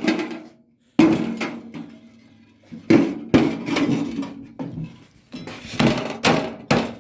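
Hammer repeatedly striking a microwave oven's metal casing to smash it open, each blow ringing briefly. About ten blows at an uneven pace, coming faster near the end.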